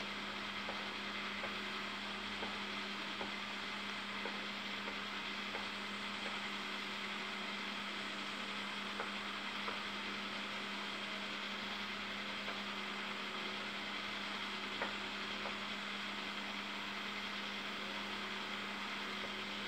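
Steady electrical hum with background hiss, with faint light ticks scattered through it.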